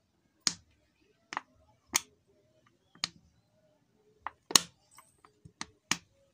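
Motorcycle rear shock absorber, clamped in locking pliers, being worked by hand: about eight sharp, irregular clicks and knocks, the loudest about four and a half seconds in.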